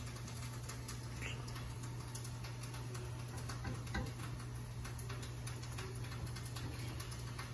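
Faint small clicks and taps of metal tongs and a ladle as tomato sauce is spooned over breaded chicken on a baking tray, with one slightly louder tap about four seconds in, over a steady low hum.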